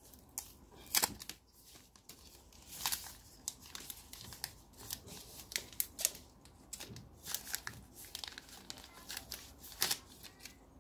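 Thin clear plastic film crinkling and crackling as it is peeled off by hand, in a run of irregular sharp crackles.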